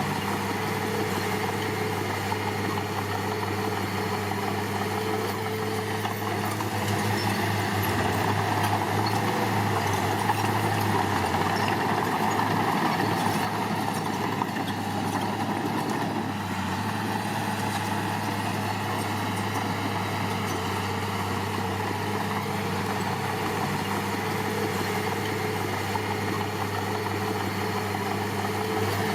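Diesel engine of heavy earthmoving machinery running steadily with a low hum, growing louder for several seconds in the middle and then settling back.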